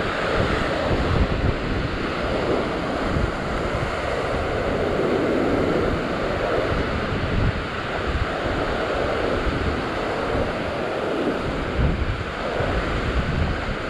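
Ocean surf breaking and washing over the shoreline rocks, surging and easing every few seconds, with wind buffeting the microphone.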